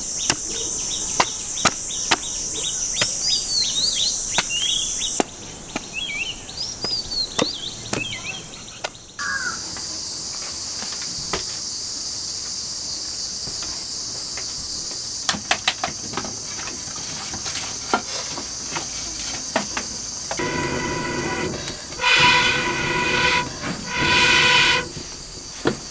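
A steady cricket and insect chorus, with sharp knife chops on wood and a few bird chirps in the first nine seconds. Near the end come three long blows through a metal blowpipe into a wood fire in a clay stove, each a pitched, hollow breath, the last two the loudest.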